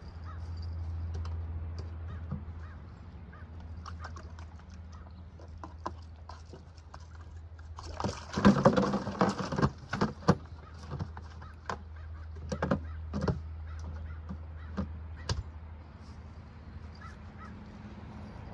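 Bird calls over a steady low hum, with a loud cluster of clicks and knocks about eight seconds in and a few scattered clicks after.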